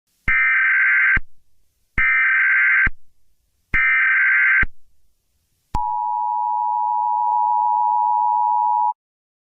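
Emergency Alert System signal: three short bursts of warbling data-header tones, then the steady two-tone attention signal for about three seconds, cutting off suddenly.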